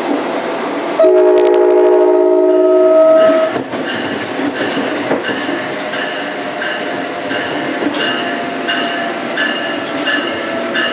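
New Jersey Transit ALP-46A electric locomotive's horn, heard from the coach right behind it, sounding one long chord of several notes for about two and a half seconds, starting about a second in, over the running noise of the moving train. After the horn, the train runs on with a regular high-pitched beat about twice a second.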